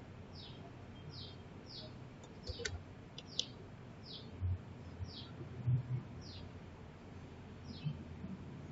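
A bird repeating a short, high, falling chirp over and over, faint in the background, with a few soft clicks and low knocks.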